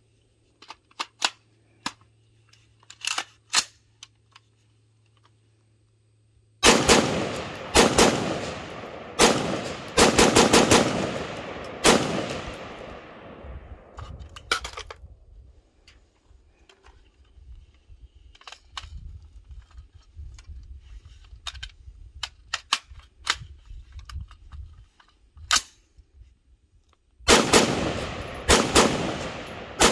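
FN 15 Guardian semi-automatic rifle in 5.56 NATO firing fast strings of shots, each crack trailing off in an echo. A few light clicks come first, then a quick string of shots from about six to twelve seconds in, a pause with a single shot, and another quick string near the end. The rifle is cycling mixed brass-cased 5.56 loads without a malfunction.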